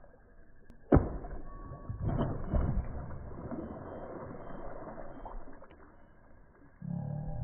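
Water splashing as a large fish strikes at the surface: one sharp, loud splash about a second in, then a few seconds of churning splashes that die away.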